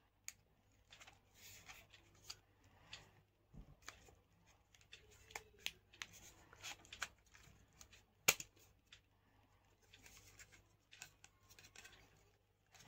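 Wecool S4 selfie-stick tripod being handled and its tripod legs spread open: scattered light clicks and scratchy rustles, with one sharper click about eight seconds in.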